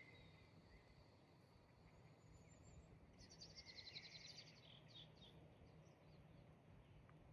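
Faint songbird song: a couple of thin high whistles, then about three seconds in a quick run of high notes lasting over a second that trails off into a few lower notes. A low steady hum sits underneath.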